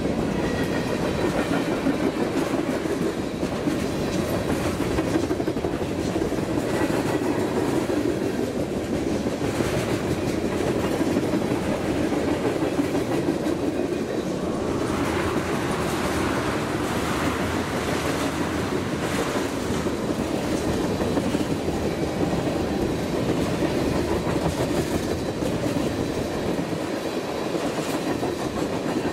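Freight train's covered hoppers and tank cars rolling past at close range: a steady rumble of steel wheels on rail, with repeated clicks as the wheels pass over the track.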